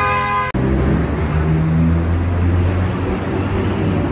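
A brief pitched tone cuts off abruptly about half a second in. It gives way to the steady rumble and low hum of a streetcar running, heard from on board.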